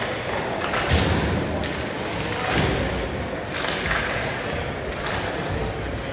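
A few irregular thuds in a large echoing hall during a team game, over a background of voices.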